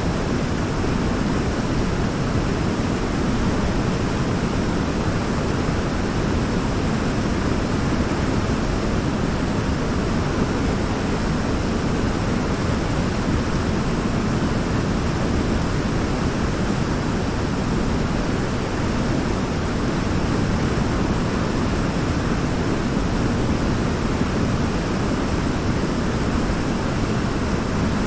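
Steady rush of a river waterfall, water pouring over a large rock midstream, a constant deep roar with a hiss on top and no breaks.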